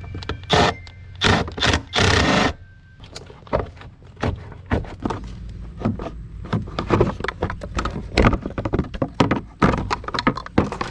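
Screwdriver loosening a metal hose clamp on the air intake, and plastic intake parts being worked loose from the mass airflow sensor. A few loud scrapes come in the first couple of seconds, then many quick clicks and knocks.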